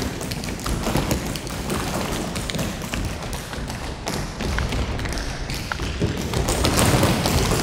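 Several performers' feet tapping and stamping on a stage floor: dense, irregular taps and thuds that grow louder about a second before the end.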